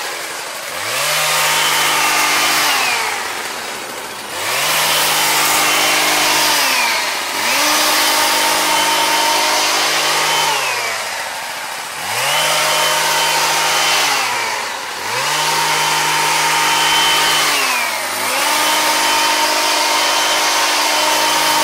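Husqvarna 122HD45 hedge trimmer's small two-stroke engine being revved to full throttle about six times, each held for two or three seconds before the pitch falls back toward idle.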